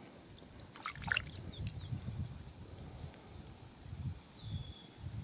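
Water sloshing and trickling as a hand dips into a shallow puddle and lifts out a wet stone arrowhead, with a few faint clicks about a second in. A steady high-pitched tone runs underneath.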